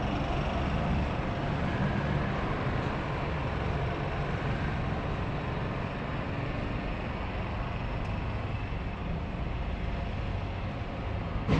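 Steady low rumble of distant motor noise, with a short sharp click near the end.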